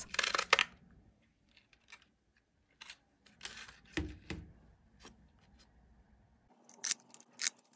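A plastic circle craft punch cutting paper labels: a short snap at the start, scattered small clicks and paper rustles of handling, and two sharp snaps near the end.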